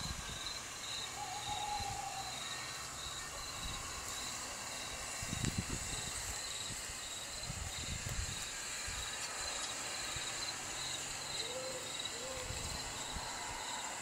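Crickets chirping steadily in regular pulses, with two short faint hoots, one about a second in and one near the end, and a few low thumps.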